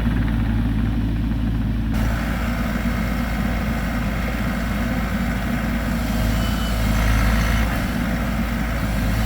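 Bobcat E42 mini excavator's diesel engine running steadily, with more hiss coming in about two seconds in.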